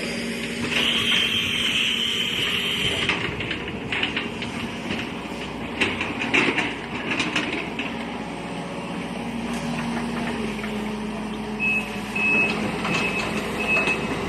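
A heavy construction vehicle's engine runs steadily, with a hiss that stops about three seconds in and some clattering knocks midway. Near the end its reversing alarm starts beeping about twice a second.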